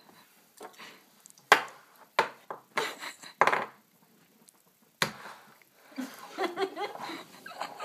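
A woman's outbursts at the sourness of a Toxic Waste sour candy: a run of short, sharp breathy sounds in the middle, then strained whimpering vocal sounds near the end.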